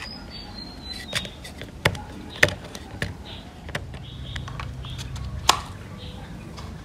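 Scattered sharp clicks and knocks of plastic and metal parts of a pan-tilt security camera being handled and fitted together, about four in all.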